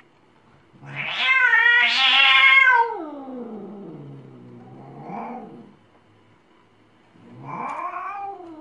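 A white kitten meowing: one long, loud drawn-out meow that slides down in pitch at its end, a short softer meow about five seconds in, and another meow rising then falling near the end.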